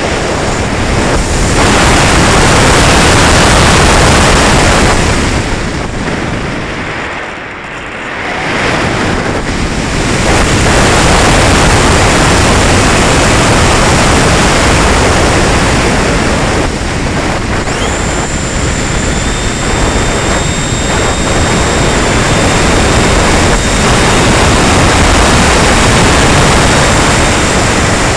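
Loud rushing airflow over the Valenta Volcano sailplane at its onboard camera's microphone during fast flight, surging and easing with airspeed and dipping briefly about seven seconds in. A faint steady high whine joins at about eighteen seconds.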